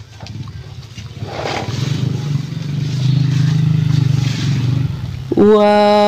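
A motor vehicle engine running as it passes, growing louder over a few seconds and then fading. Near the end a man gives a long, drawn-out exclamation, "waah".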